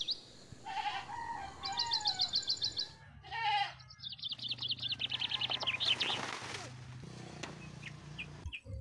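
Farm ambience: a bird sings several runs of fast, high, repeated chirps, and a goat gives one short bleat about three and a half seconds in.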